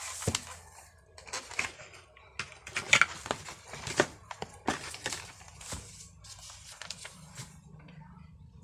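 Scattered sharp plastic clicks and clacks, about ten, unevenly spaced, from handling the LEAVEN K550 mechanical keyboard.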